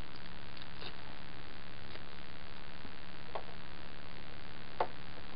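Hands handling small adhesive-backed Velcro pieces and pressing them onto a plastic armor shell: a few light clicks and taps, the strongest near the end, over a steady hiss and low hum.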